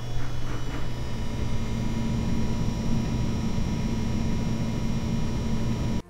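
Water-cooling pump of an EVGA RTX 2080 Ti XC Hybrid graphics card, a steady refrigerator-like hum with a thin high whine over it: the pump noise the owner is hunting down. It cuts off suddenly at the end.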